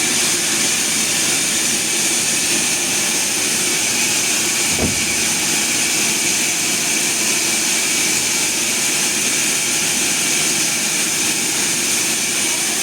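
Sawmill machinery running steadily: a constant, even mechanical noise with a strong high hiss, and a faint knock about five seconds in.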